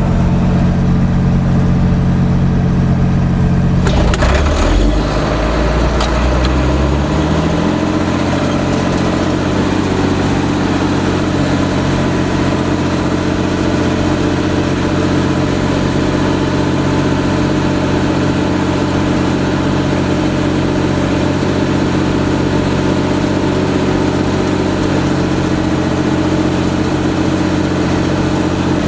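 Fendt Favorit 611 LSA tractor's six-cylinder diesel engine running steadily while ploughing with a mounted four-furrow plough. About four seconds in, the engine note changes and climbs over the next few seconds, then holds steady.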